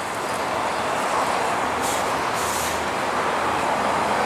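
Intermodal freight train cars carrying highway trailers rolling past: a steady rush of wheels on rail that slowly grows louder, with two short high-pitched hisses about two seconds in.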